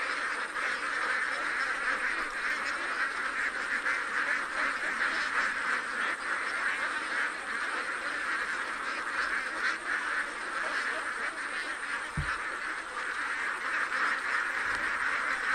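A large flock of domestic ducks quacking together in a constant, dense chatter of overlapping calls.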